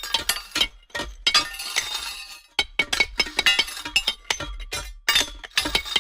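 A metal carabiner struck repeatedly against rock: rapid, irregular sharp clinks with short bright metallic ringing, in runs broken by brief pauses.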